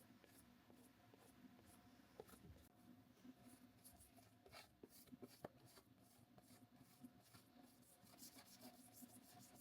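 Faint scratchy strokes of a paintbrush on canvas, many short strokes in an irregular run, over a low steady hum.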